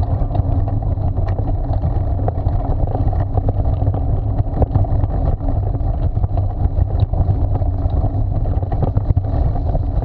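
Steady low rumble and rattle of a dog-drawn training rig rolling over a frosty gravel track behind a running dog team, with wind buffeting the microphone and scattered short crunches and clicks.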